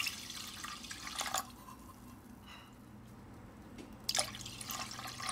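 Water poured into a steel pot of rice, moong dal and milk, splashing into the liquid. There are two pours: one at the start lasting just over a second, and another about four seconds in. These are measured cups of water, three cups to one of rice.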